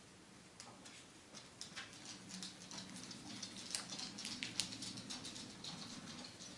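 Origami paper crinkling and crackling as fingers fold it over and press it flat: a string of faint ticks and rustles that grows thicker after the first second or so, with a couple of sharper crackles in the middle.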